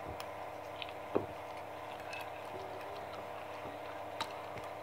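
Quiet eating: a few small clicks from a metal fork, the clearest about a second in, with soft chewing of macaroni and cheese over a steady low hum.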